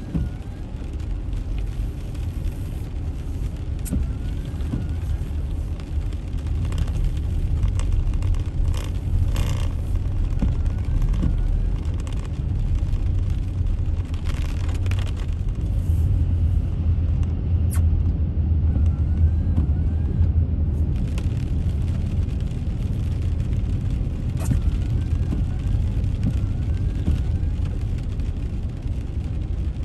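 Steady low rumble of a moving vehicle. A few faint short warbling squeaks and scattered light clicks sound over it.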